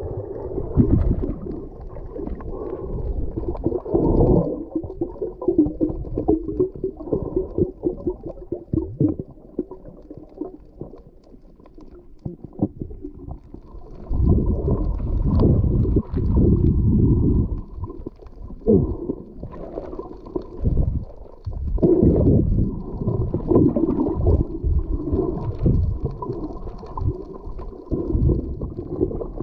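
Muffled underwater water noise picked up by a submerged GoPro HERO8: low rumbling and gurgling surges of moving water, quieter for a few seconds near the middle.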